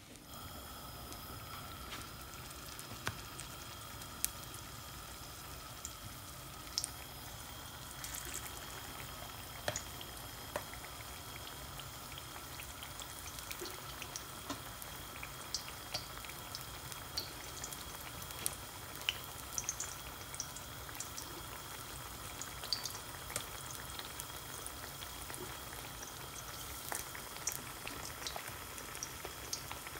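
Batter-coated vegetable slices shallow-frying in hot oil in a pan: a steady sizzle with frequent small pops and crackles.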